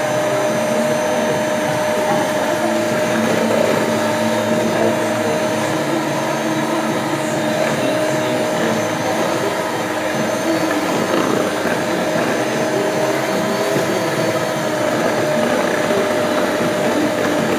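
Electric hand mixer running steadily with its beaters in chocolate cake batter, a constant motor whine over a whirring hum.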